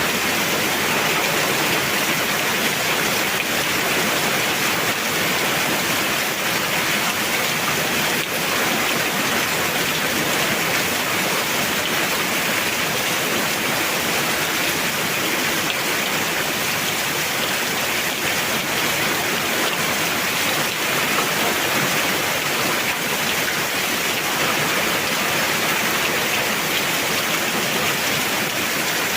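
Heavy rain pouring steadily, a dense, even hiss of falling water with no let-up.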